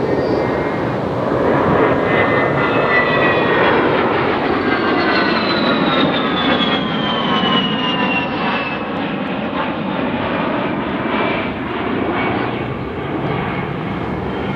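A-10C Thunderbolt II's twin General Electric TF34 turbofans running loud in a flypast. Their whine falls in pitch from about five seconds in, over a steady jet rush.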